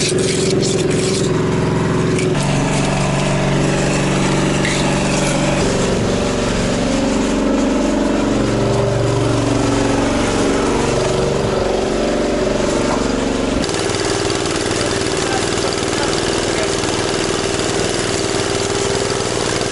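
An engine running steadily on a concrete job, its pitch shifting now and then, with an abrupt change in the sound about 14 seconds in.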